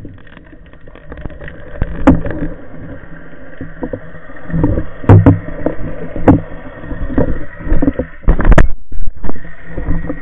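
Muffled underwater movement heard through a waterproof camera housing: water rushing past and dull knocks and bumps as the diver handles his speargun and the speared fish. A louder cluster of rushing and bumping comes a little past eight seconds.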